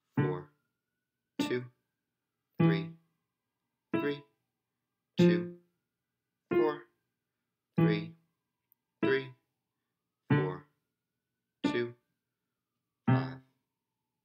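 Staccato piano notes on an electronic keyboard, played one at a time at a slow, even pace of about one every 1.3 seconds. Each note is cut off quickly as the finger lifts, leaving silence before the next.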